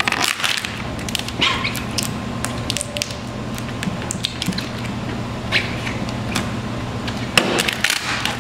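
Thick 5 mil Vvivid vinyl wrap film crackling and crinkling in scattered sharp bursts as it is pressed and smoothed by hand and with a squeegee, over a steady low hum.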